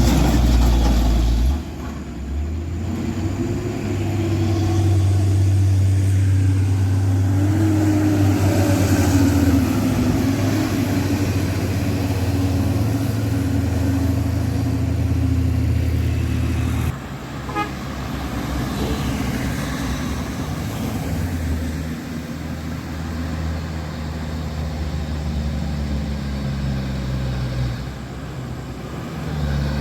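Heavy diesel truck engines labouring up a steep climb, running low and steady, with a truck horn tooting. The sound drops suddenly about two seconds in and again around seventeen seconds in.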